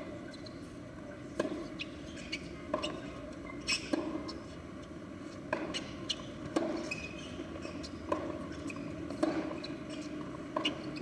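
Tennis ball struck back and forth with rackets during a rally: a sharp knock roughly every second and a half, with softer knocks in between.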